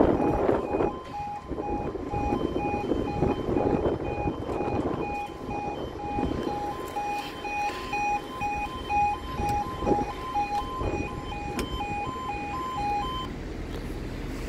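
UK level crossing warning alarm sounding as the barriers lower, a rapidly pulsing two-tone electronic alarm that stops about 13 seconds in.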